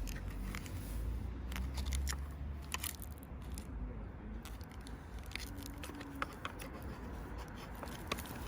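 Scattered sharp clicks and light scrapes of small plastic parts being handled while an LED mirror indicator unit is fitted, over a low steady hum.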